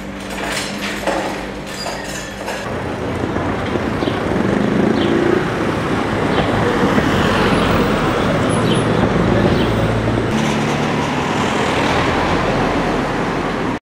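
Street traffic noise, louder from about three seconds in: a steady wash of passing vehicles, with one engine rising and falling as it passes near the middle.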